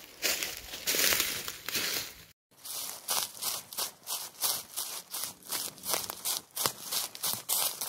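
Footsteps crunching through dry fallen leaves, a steady run of crackling steps at walking pace, with a brief cut to silence about two and a half seconds in.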